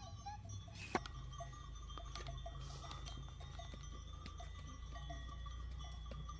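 Livestock bells ringing and clinking as the animals move about, with one sharp click about a second in.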